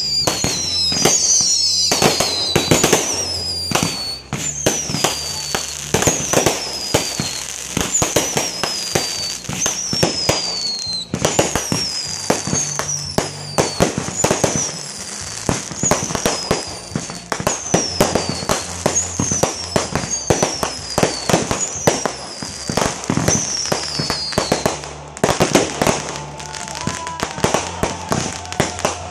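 Fireworks display: a rapid, continuous barrage of bangs, pops and crackles from bursting shells. Over it, a string of high whistles falls in pitch, one about every second and a half, and the whistles stop a few seconds before the end.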